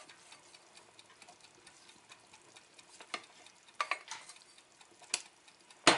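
Wooden spatula scraping and knocking against a frying pan, working out fried onion rounds. A faint, steady background is broken by a few sharp knocks from about three seconds in, the loudest near the end.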